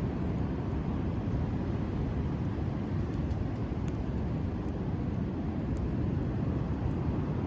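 Steady low roar of sea surf, with faint scattered crackles from a wood campfire.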